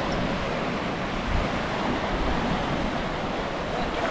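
Ocean surf breaking and washing on the beach, a steady rush, with wind buffeting the microphone at moments.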